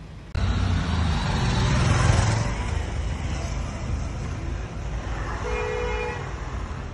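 Road traffic noise heard from a moving car, with a short horn toot about five and a half seconds in.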